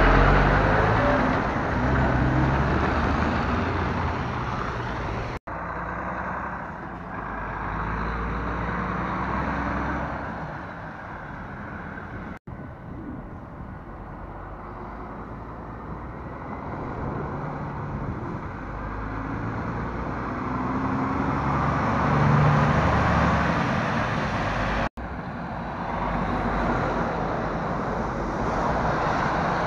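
Articulated lorries driving past at close range: diesel engines running under a steady hiss of tyres on a wet road. It is loudest as one passes right by near the start, and the sound breaks off sharply three times.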